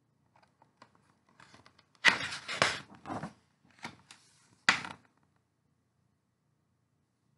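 Paper pages of a picture book being turned and pressed flat by hand: a few faint ticks, then crisp rustling with several sharp swishes over about three seconds.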